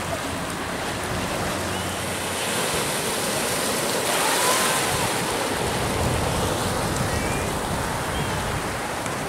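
Ocean surf: small waves breaking and washing through shallow water, a steady rush that swells briefly in the middle as a wave breaks close by.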